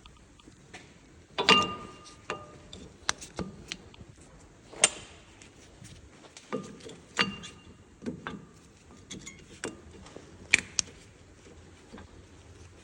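Scattered metallic clinks and knocks of tools and brake parts being handled, several with a short ring. The loudest come about one and a half seconds in and at about five seconds.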